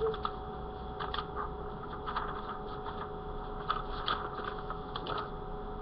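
Scattered light clicks and rustles of handling, likely the paper drawing being moved, over a steady electrical whine and hum from the recording.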